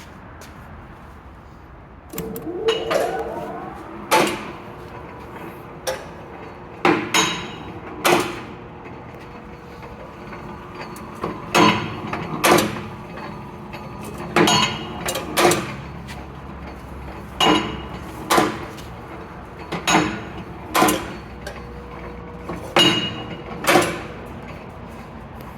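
Takeda Kikai S-305 five-station punch-and-shear machine: its motor starts about two seconds in and runs with a steady hum, while the cutter and punch stroke again and again with sharp metal clanks, often two close together.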